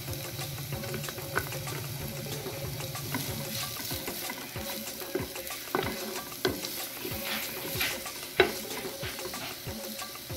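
Chopped onions and garlic sizzling in oil in a nonstick frying pan, with a wooden spatula stirring and knocking against the pan from about four seconds in; the sharpest knock comes near the end.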